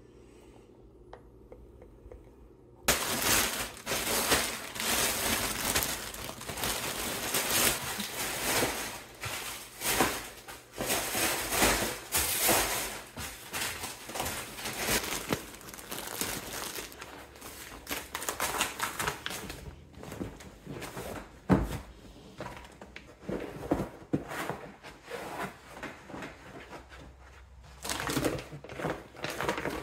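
Plastic packaging crinkling and rustling as a parcel is unwrapped by hand. It starts suddenly about three seconds in and is dense at first, then sparser in the second half, with one sharp knock about two-thirds of the way through.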